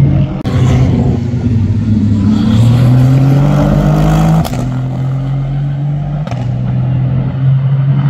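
Aston Martin Vantage racing car's twin-turbo 4.0-litre V8 running hard, its note rising as it accelerates. About four and a half seconds in the pitch drops abruptly, and then the engine pulls on steadily.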